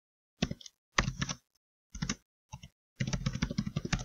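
Typing on a computer keyboard: quick runs of keystrokes with short pauses between them, the longest run near the end.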